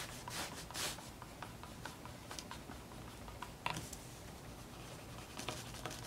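Fingertip rubbing hard over transfer paper to press vinyl letters onto a plastic soap dispenser: faint, irregular rubbing and scratching strokes, a few sharper ones near the start.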